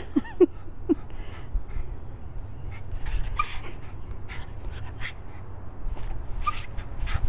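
Excited dog whimpering, with a few short pitched yelps in the first second and a run of short rustling, breathy noises after them.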